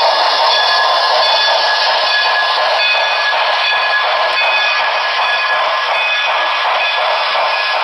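Model train sounds running steadily on a layout: a dense noisy hum with thin whining tones that come and go.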